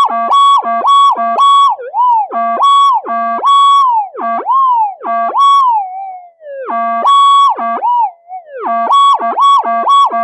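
Metal detector's audio target tone sounding repeatedly as the coil passes a screw hidden in a bundle of ferrite cores: a run of electronic beeps of varying length, some with pitch swooping down between them, and a quicker string of short beeps near the end. In ground-tracking mode, the detector is not yet cancelling the target.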